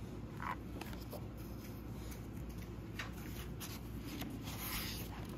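Faint handling of book pages: a soft paper rustle as a page is turned near the end, with a few light ticks over quiet room tone.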